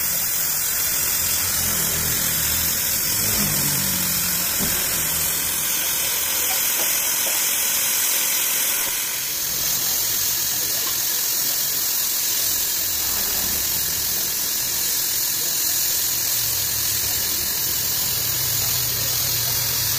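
Gas flame-cutting torch hissing steadily as it cuts the edge of a steel auger flight turning on a lathe, with a low machine hum underneath.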